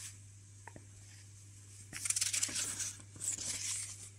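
Old paper instruction booklets rustling and crinkling as they are handled by hand, in two bursts starting about two seconds in.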